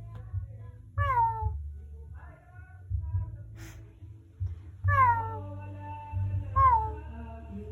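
Meowing: a series of cat meows, each sliding down in pitch. Clear ones come about a second in, near five seconds in (the longest, held over a second) and shortly after, with fainter ones between, over a steady low hum.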